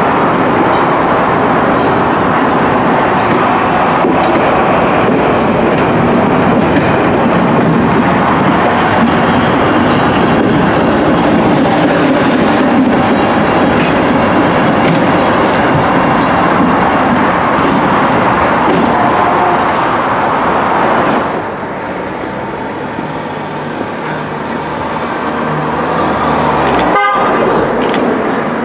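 Train of 4TC coaches hauled by a GBRf Class 73 electro-diesel locomotive passing close by, a loud, steady rush of wheels on rail. About 21 s in it drops suddenly to a quieter, more distant train approaching.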